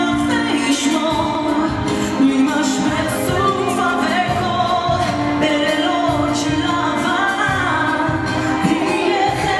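A woman singing a slow Hebrew ballad with instrumental accompaniment.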